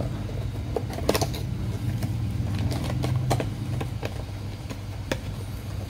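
A few sharp clicks and taps of small items being handled on a desk, the clearest about a second, three seconds and five seconds in, over a steady low hum.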